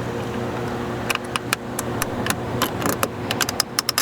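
A plastic door trim piece is being pried up with a screwdriver and pick. From about a second in comes a run of sharp clicks and snaps from the tool and the tight plastic clips, over a steady low hum.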